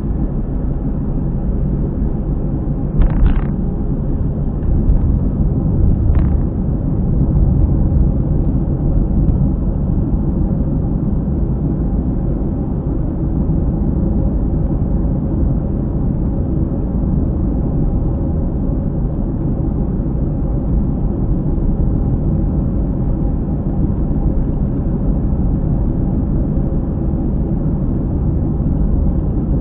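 Car on the move with a steady low drone from around a wheel, an abnormal noise that the owner puts down to a worn wheel hub bearing. Two short clicks sound about three and six seconds in.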